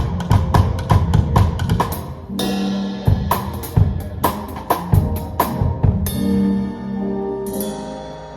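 A live band is playing with a drum kit pounding out fills over sustained chords. It closes on a cymbal crash about three-quarters of the way in, and the final chord rings out and fades.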